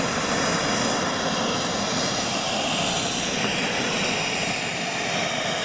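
JetMunt VT80 model jet turbine of a scale RC jet running steadily at taxi power, a constant high-pitched whine over a rushing hiss.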